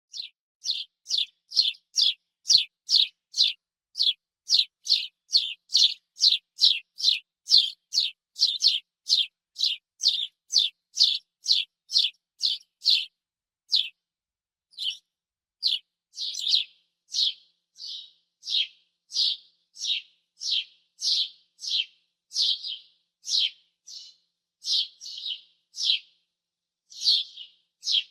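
A sparrow chirping over and over in short, falling chirps, about two a second. After a brief pause about halfway, the chirps come slower and sound fuller.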